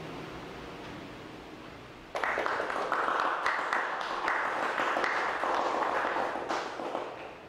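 Audience applauding. The clapping starts suddenly about two seconds in and dies away near the end.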